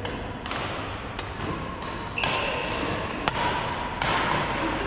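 Badminton rackets striking a shuttlecock in a rally: a run of sharp hits roughly a second apart, the loudest about three seconds in, over a steady background din.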